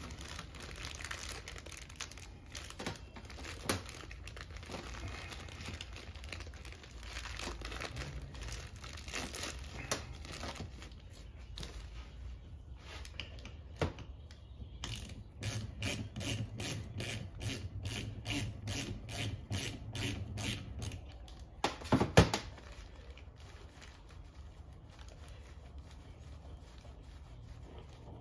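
Clear plastic bag crinkling and rustling as an oil pump is handled inside it. Past the middle comes a run of quick, even clicks lasting several seconds, then two sharp knocks, the loudest sounds.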